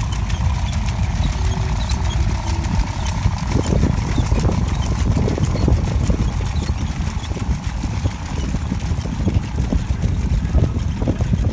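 Walking chair's Theo Jansen leg linkages clattering and knocking against the hard ground as its motors drive it along, over a steady low rumble. The knocking becomes dense and continuous about three and a half seconds in.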